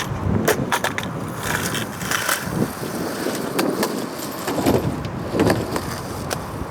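Skateboard wheels rolling over pavement with a steady rumble, broken by a series of sharp clacks and knocks of the board.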